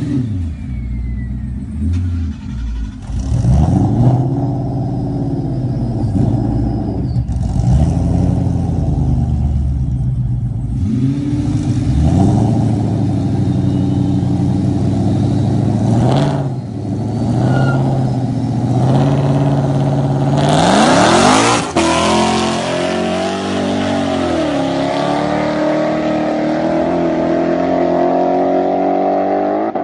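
Ford Mustang GT V8 with a six-speed manual and Jeep Grand Cherokee SRT V8 revving repeatedly at a standing start. About two-thirds of the way in they launch at full throttle: the revs climb steeply and drop with each upshift as the cars pull away.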